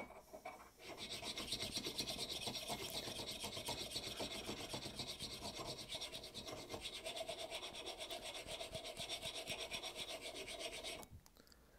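Abrasive sharpening stone rubbed in small circles over the pitted steel of a hewing axe head: a steady scraping in rapid, even strokes that stops shortly before the end. The stone is barely biting into the steel.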